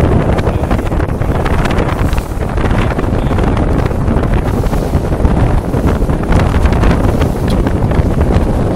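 Strong wind buffeting the microphone over the rush and splash of water along the hull of a heeled sailboat sailing close-hauled, with spray slapping against the side now and then.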